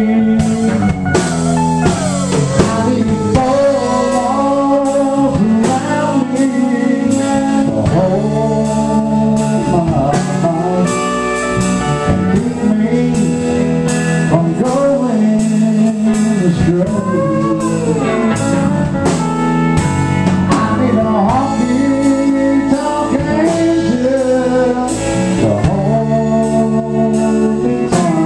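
Live country band playing an instrumental break: hollow-body electric guitar over a steady drum beat, with a lead line that bends up and down in pitch.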